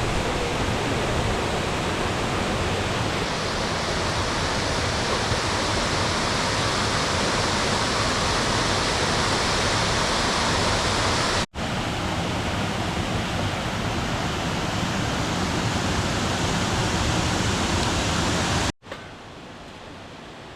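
Waterfall's rushing water, a loud steady roar. It is broken by two abrupt cuts, and after the second, near the end, it is much fainter.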